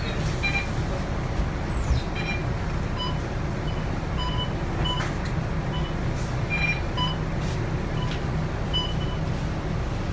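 Volvo B9TL bus's diesel engine running steadily, heard inside the passenger cabin, with a dozen or so short electronic beeps at irregular intervals.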